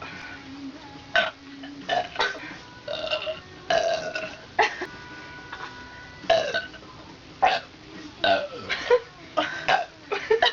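A person burping loudly over and over, a string of about a dozen short burps with brief pauses between them.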